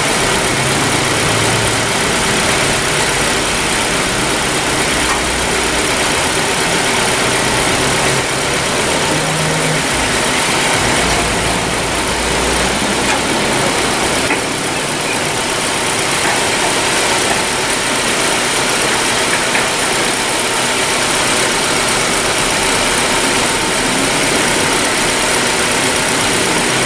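Honda Civic engine idling steadily under an even, loud hiss.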